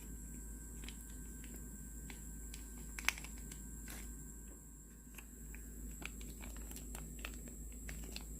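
Faint scattered clicks and taps of handling over a steady low hum, with one sharper click about three seconds in.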